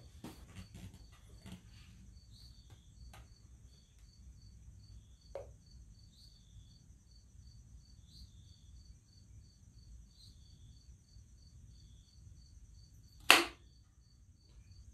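Handling of a paint can fitted with a mixing and pouring lid while paint is poured into a mixing cup, with the pour itself almost silent. There are a few light clicks near the start, a soft knock about five seconds in, and one loud, sharp clack about thirteen seconds in. A faint high chirp repeats evenly, two or three times a second, throughout.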